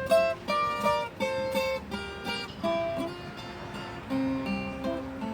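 Instrumental break of a sertanejo raiz song: plucked acoustic string instruments playing a picked melody over strummed chords, busier in the first two seconds.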